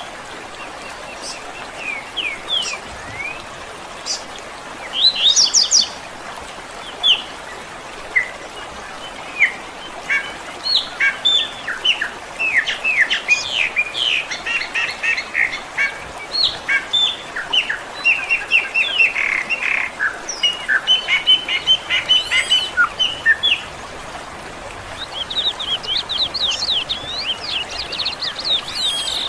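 Songbirds chirping and chattering over a steady background hiss: scattered calls at first, then many birds calling at once, ending in a fast trilling series.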